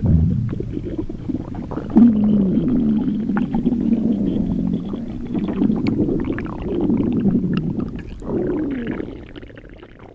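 Deep gurgling, stomach-rumble sound effect with wavering creaks, standing in for a hugely swollen, liquid-filled body. It surges about two seconds in and fades away near the end.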